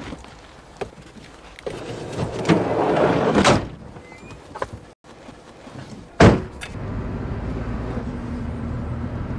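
A minivan's sliding side door rolls along its track and slams shut about three and a half seconds in. A second door slam follows a few seconds later. After that the van's engine and road noise run steadily, heard from inside the cabin while it drives.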